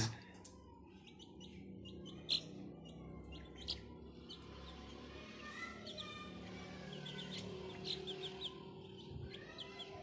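Chicks peeping faintly: scattered short, high chirps that come more often in the second half, over a faint steady hum. A single light tap sounds about two seconds in.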